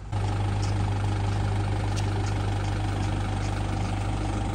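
Engine of a 30-seat bus idling with a steady low hum.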